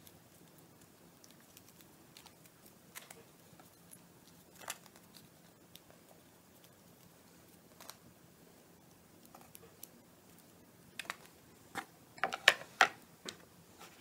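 Hands working thin wire and a wooden skewer: scattered faint clicks and small handling taps. Near the end comes a quick cluster of sharper taps and knocks as the skewer and wire are set down on a wooden cutting board.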